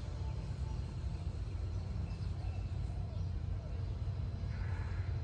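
Outdoor ambience at a rural railway platform: a steady low rumble with faint, scattered short calls and distant voices above it.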